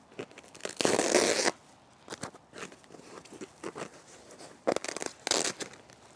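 Crinkling and rustling of a plant's white wrapping sleeve and its polyester fluff being handled, in two louder bursts about a second in and near five seconds, with small rustles between.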